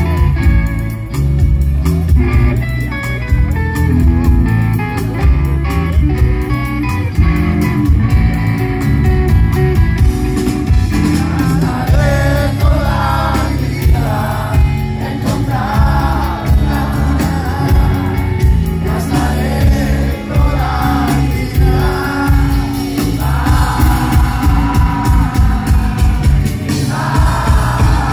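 Live rock band playing at loud volume: electric guitar, bass and drums, with singing coming in about eleven seconds in.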